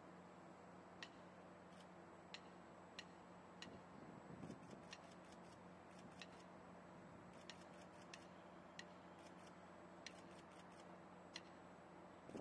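Near silence broken by faint, evenly spaced taps, about three every two seconds, with a few quick runs of clicks in between: a drummer's stick taps keeping marching time for a military band.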